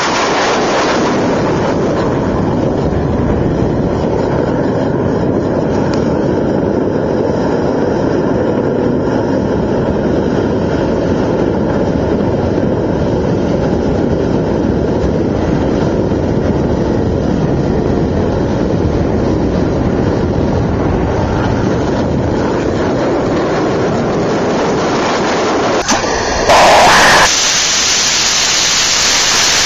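Rocket engine of a Masten VTVL test vehicle firing steadily in flight: a loud, even noise that starts abruptly. About 26 seconds in it cuts to a different close-up engine firing, opening with a brief louder burst and then running on.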